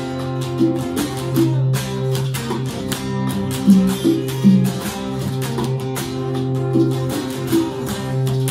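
Electric guitar playing an instrumental passage of a song: held low notes with shorter higher notes over them and a steady picking rhythm.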